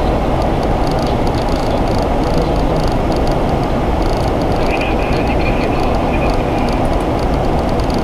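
Steady loud rush of airflow and engine noise inside a Boeing 737 cockpit while descending on approach, low and even with no changes.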